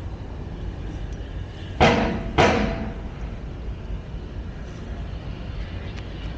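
Two sharp knocks about half a second apart, each dying away quickly, over a steady low outdoor rumble.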